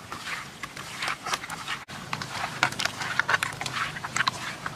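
Wet squelching and smacking of hands kneading and turning raw fish steaks in a pan: a quick, irregular patter of short wet clicks.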